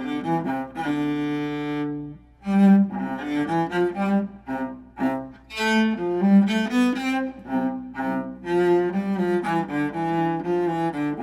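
A cello played with the bow: a run of notes, one note held about a second in, a brief break, then a quicker passage. It is being played as a test after its bridge was lowered to bring down a high string action.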